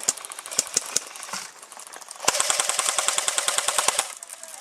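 Airsoft gun firing: a few scattered single shots, then, a little after two seconds in, a fully automatic burst of rapid, evenly spaced cracks lasting about two seconds.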